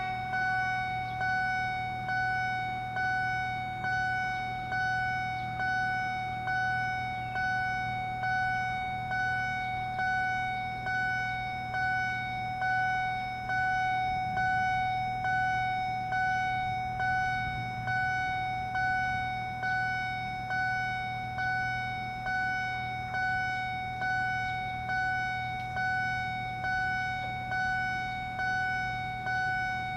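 Level crossing warning signal sounding: a bell-like tone struck about once a second, each strike fading before the next, over a steady low hum.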